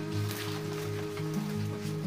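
Background music: held, shifting notes in a low register at a steady level.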